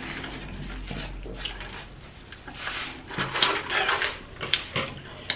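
Close-up eating noises: a drink from a plastic cup, then chewing of fried chicken and other mouth noises, with a few sharp clicks near the end.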